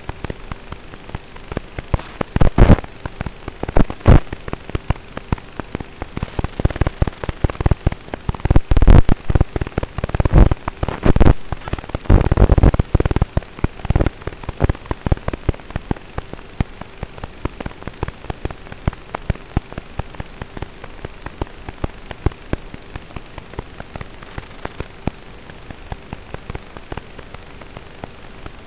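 Crackling and popping over a steady hiss with a faint steady hum, the crackle densest and loudest in the first half: noise on the audio of an analog FPV video downlink, recorded through the receiver.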